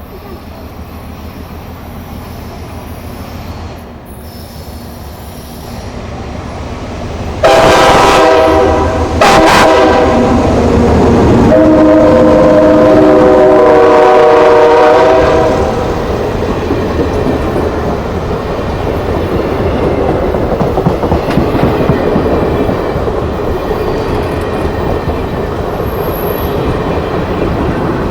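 Excursion train approaching and passing: a rising rumble, then the locomotive's multi-note air horn sounding three blasts about 7 seconds in, the last one long and held about four seconds. After the horn the train goes by with a steady loud rumble and clickety-clack of wheels on rail joints.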